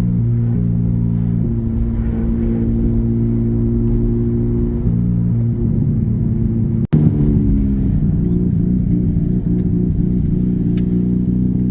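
Mazda RX-8 driving, with a steady low engine and road rumble in the cabin and music playing over it in held, changing notes. The sound drops out for an instant about seven seconds in.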